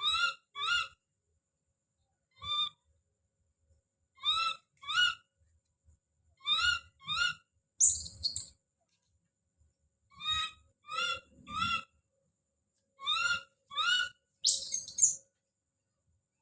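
A baby monkey calling out over and over: short, high, slightly rising cries, mostly in pairs or threes, broken twice by a louder, shriller scream, about halfway through and near the end.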